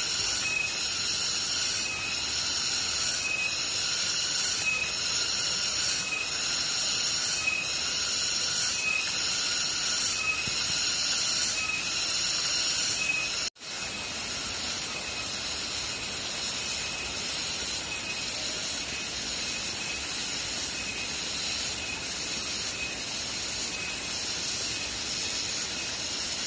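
High-pitched insect chorus, typical of cicadas in tropical forest, rising and falling in a steady pulse about every second and a half. About halfway through it drops abruptly and goes on a little quieter.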